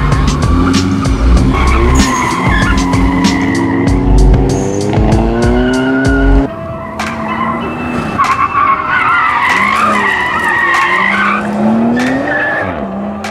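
Cars driven hard through an autocross course, engines revving and climbing in pitch. The sound breaks off suddenly about six and a half seconds in. Later, tires squeal through a corner.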